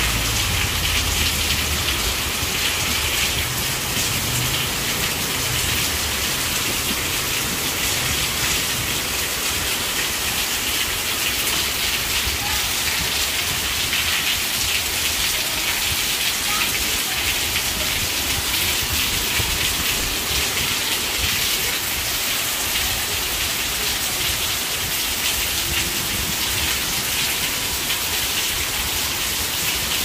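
Steady heavy rain, an even hiss with no let-up.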